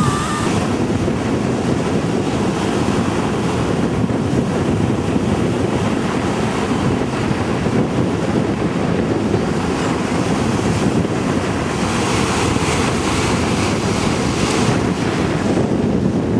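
Ocean surf breaking and washing up the beach, with wind buffeting the microphone: a steady, full rush of noise.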